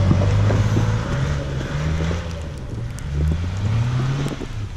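Kia SUV's engine revving up and down in repeated surges as its tyres spin and churn through deep snow, struggling for grip.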